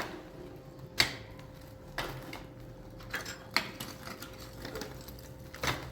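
A series of sharp clicks at uneven intervals, roughly one a second, over a faint steady hum.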